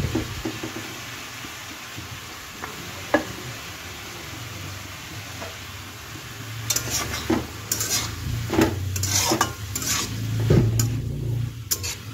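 Chopped tomatoes tipped with a soft thump from a steel bowl into a steel kadhai of mushrooms and onions frying with a light sizzle. From about halfway on, a metal spatula stirs and scrapes against the steel pan in quick, repeated strokes.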